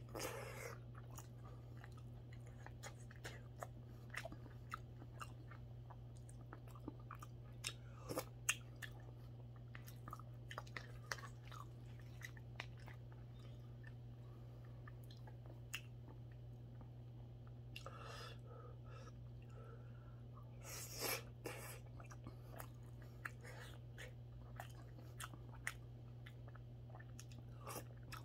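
A person eating spoonfuls of mackerel rice porridge: quiet chewing with many small scattered clicks, a few louder short mouth and spoon sounds, and a steady low hum underneath.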